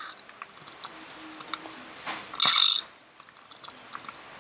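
Baby Alive doll's mouth mechanism clicking and ratcheting softly as it is fed water, with a short loud hiss about two and a half seconds in.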